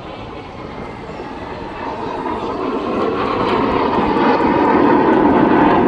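Fixed-wing aircraft's engine noise swelling steadily as the plane approaches, loudest near the end.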